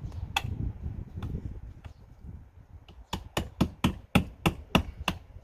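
Hammer driving a roofing nail through the slot in a new window's nailing fin: one blow near the start, then from about three seconds in a quick run of about eight blows, roughly three a second.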